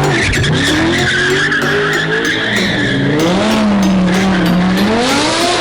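Car engine revving up and down while the tyres squeal for about the first three seconds, then the engine carries on revving alone.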